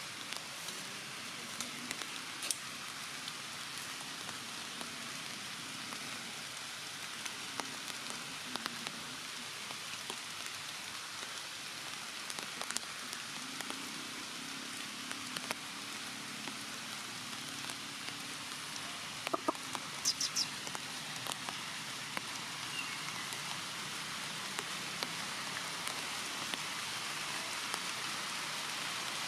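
Light rain falling on forest foliage: a steady, even hiss with scattered drip ticks, and a short quick run of high clicks about twenty seconds in.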